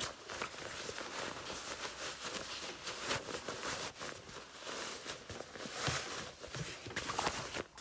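Rustling and brushing of fabric in irregular strokes as a padded, lined dog vest is turned right side out by hand.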